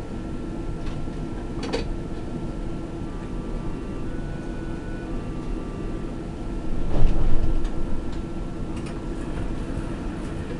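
Steady hum inside the cab of a Berlin S-Bahn electric train standing at a platform, with scattered clicks and a few faint short tones. A louder low rumble comes about seven seconds in.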